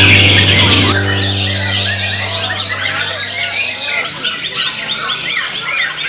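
White-rumped shama singing a dense, fast run of varied chirps and whistles. Music plays under it for the first second and stops abruptly.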